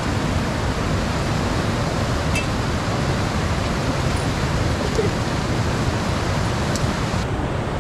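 Steady rush of a fast-flowing mountain river, with a couple of faint clicks.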